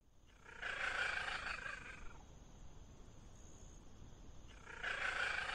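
A cat calling twice, each call drawn out for about a second and a half, over a steady low background hiss.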